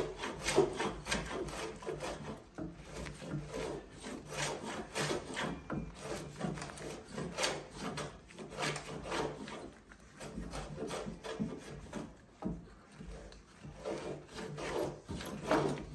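Carriage plane (a hand plane) shaving wood off a timber's tenon cheek to bring it flat: a quick series of short rasping strokes with brief pauses between them.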